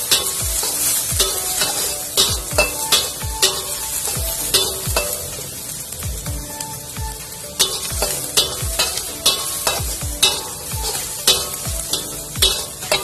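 Sliced shallots and garlic sizzling in oil in a metal wok, with a metal spatula scraping and knocking against the pan in quick, irregular strokes.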